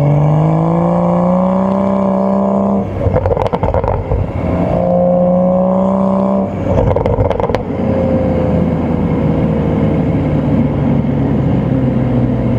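BMW M235i's N55 turbocharged inline-six revving up and holding high revs under throttle, twice broken off briefly by a rattly clatter. In the second half the revs ease off with a slowly falling pitch.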